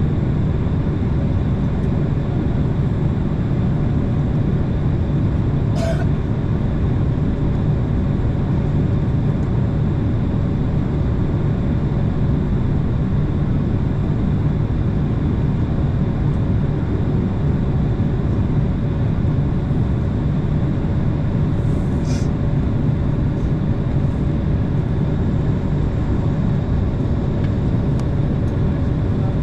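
Jet airliner cabin noise during taxi: a steady engine rumble with a faint steady hum above it. Two short clicks come through, about six seconds in and again about twenty-two seconds in.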